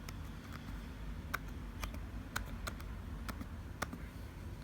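Keys of a 2012 MacBook Air's keyboard being tapped one at a time while a password is typed: about a dozen short, unevenly spaced clicks.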